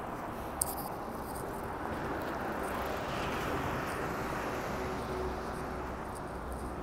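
Street traffic: a vehicle passing, its tyre and engine noise swelling to a peak midway and easing off, over a steady traffic hum, with a single sharp click under a second in.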